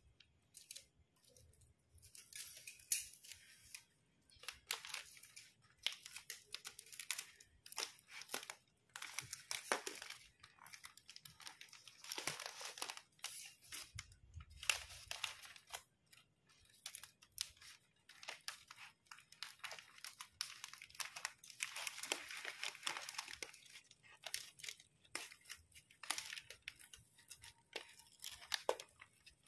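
Adhesive tape pulled off the roll and torn, with bouquet wrapping paper and clear cellophane crinkling and rustling as they are handled, in irregular bursts.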